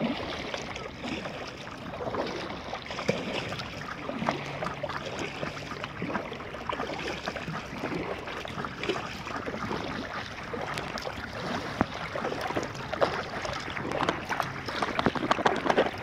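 Water lapping and splashing around a stand-up paddleboard as it is paddled along, with irregular splashes of the paddle that grow a little louder near the end.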